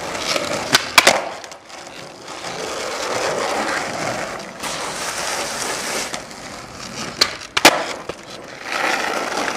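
Skateboard wheels rolling on asphalt, broken by two pairs of sharp clacks from the board striking the ground: one pair about a second in, another about seven and a half seconds in.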